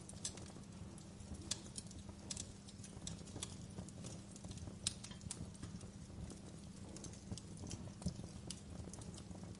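Campfire crackling: irregular sharp snaps and pops of burning logs over a low, steady rumble, with the sharpest pop about five seconds in.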